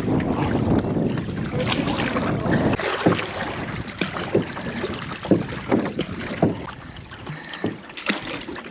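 Canoe being paddled toward shore. A steady rush of wind and water over the first few seconds gives way to a run of short splashes and knocks from the paddle and hull.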